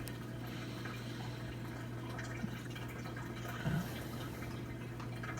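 Amana dishwasher draining in its diagnostic test cycle: water gurgling through the drain under a steady low hum.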